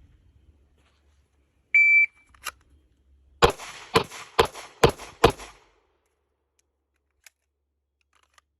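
Shot timer's start beep, a single short high tone, then about a second and a half later five pistol shots fired in a quick string, about half a second apart.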